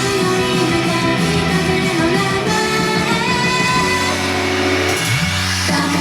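A J-pop idol song playing loudly, here a mostly instrumental stretch with guitar.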